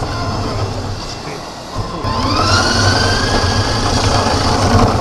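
A small vehicle's motor whining over a steady rumble of wheels rolling on concrete. About two seconds in it gets louder and the whine climbs in pitch.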